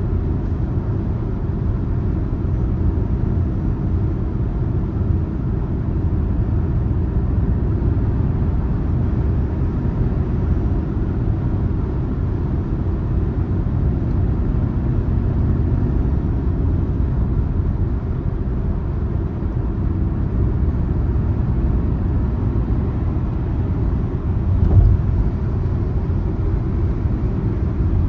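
Car driving along a road: a steady low rumble of engine and tyre noise, with one short thump near the end.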